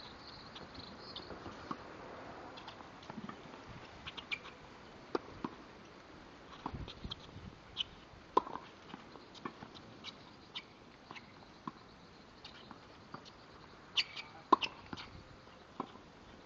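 Tennis balls being struck by rackets and bouncing on a hard court: short, sharp pops at uneven intervals, the loudest pair about fourteen seconds in.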